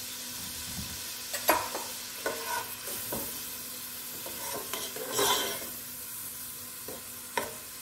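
Onions, garlic and herb sprigs sizzling gently in melted butter as they are stirred with a slotted spoon. Several short knocks and scrapes of the spoon against the pot sound over the steady frying hiss.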